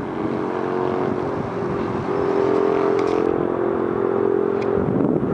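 Radio-controlled model airplane flying overhead: its motor and propeller make a steady pitched drone that grows stronger about two seconds in.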